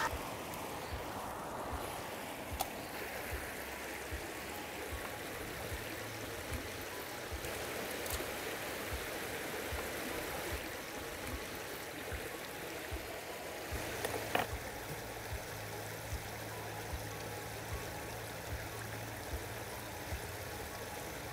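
Steady rush of river water flowing, with a few faint clicks and a brief knock about fourteen seconds in.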